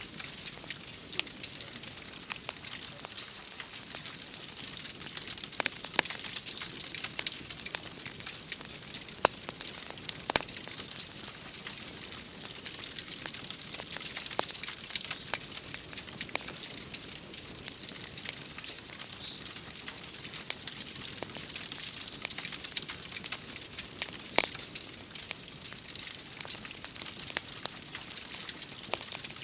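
Wood fire crackling, with scattered sharp pops, a few of them loud, over a steady hiss of rain.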